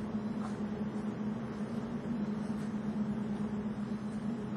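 Steady low mechanical hum with an even hiss behind it, unchanging throughout.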